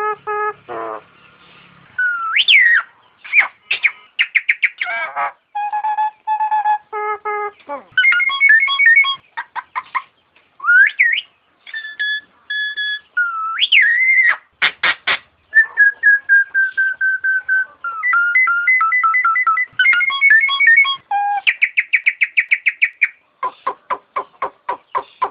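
Nias hill myna calling in a varied string of loud whistles: rising and falling glides, held notes and fast runs of repeated short notes, in phrases with brief pauses between them.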